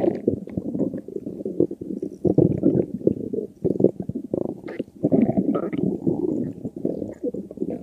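A person's stomach growling: a continuous run of low, irregular gurgles and crackles that swell and fade in uneven surges.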